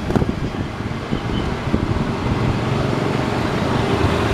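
Motorcycles and other road traffic running steadily past, with wind noise on the microphone.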